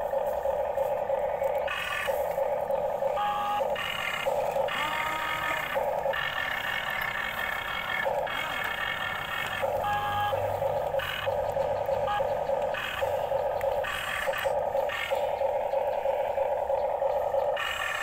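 Small electric gear motors of a toy RC excavator whirring steadily, with extra higher-pitched motor whine cutting in and out repeatedly as the boom, arm and bucket are worked.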